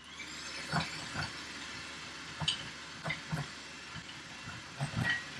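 Electric hand mixer running, its beaters whisking egg yolks in a bowl, with a steady whirr and several sharp knocks as the beaters hit the side of the bowl.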